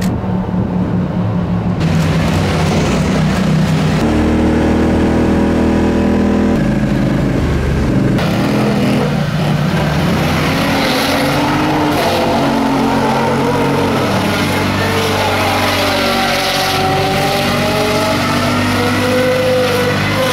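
Polaris ATV engines running. At first quads approach with the engine note stepping up in pitch through gear changes. From about eight seconds a quad engine revs up and down repeatedly as it spins donuts on the asphalt.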